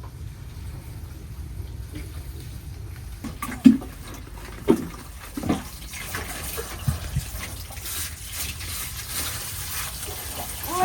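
Water pouring and splashing as garden plants are watered, with a few soft knocks about a third of the way in.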